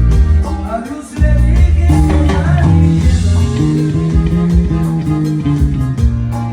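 A band playing an instrumental passage, with a walking bass line under plucked guitar and a steady beat.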